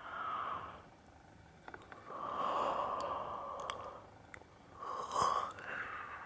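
A woman's close-miked breathy exhalations into the microphone, ASMR fogging and yawning breaths: three in a row, the middle one the longest at about two seconds.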